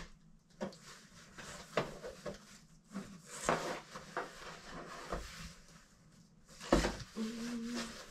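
Cardboard packaging being handled inside a box: scattered knocks, scrapes and rustles of cardboard, with a louder knock about seven seconds in.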